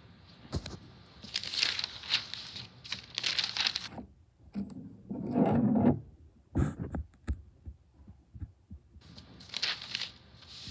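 Rustling and scratching handling noises, broken by a few sharp clicks and knocks, with one louder, duller burst of noise in the middle.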